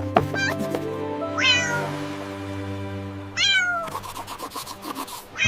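Two cat meows, each falling in pitch, about a second and a half in and again about two seconds later, over background music with held notes.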